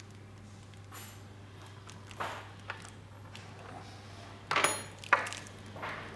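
Small metal parts clinking and knocking against an aluminium door rail as a side-fixing pivot unit is fitted into it: a handful of light clicks and taps, the loudest two about four and a half and five seconds in, one with a brief high ring.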